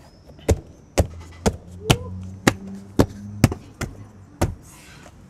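Hand striking a Subaru Outback's door trim panel to seat it back onto the door: a run of sharp knocks, about two a second.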